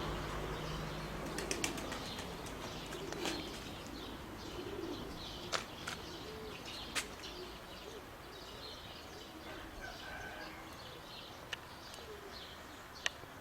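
Domestic pigeons flapping their wings as the flock comes down to land, with scattered sharp wing claps and some chirping of small birds.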